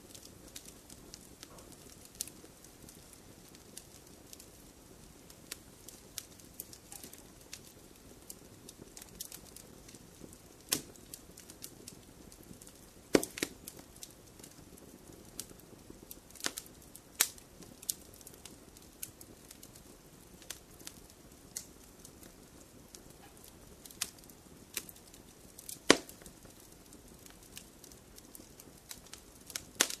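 Fireplace fire crackling: irregular sharp pops and snaps over a soft low hiss, a few of them much louder than the rest, about halfway and near the end.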